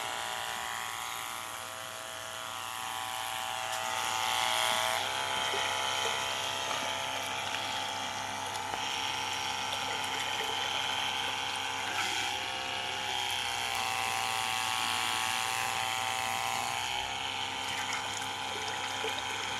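Small 12 V diaphragm water pump running with a steady electric whine, water splashing from its outlet hose into a metal basin. The whine sags briefly in pitch about twelve seconds in.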